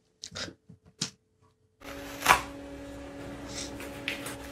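A few soft clicks, then a steady low hum over which pink rubber kitchen gloves are rubbed and pulled at, with one sharp snap of rubber about two seconds in and fainter rubbing after.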